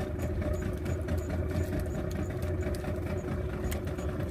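Fishing boat's engine running steadily: a constant low hum with a faint, regular ticking over it.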